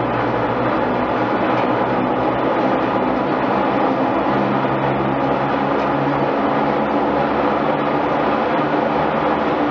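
Steady, loud din of a mill's overhead line shafting running, the engine-driven shafts turning their pulleys and flat belts that drive the Lancashire looms.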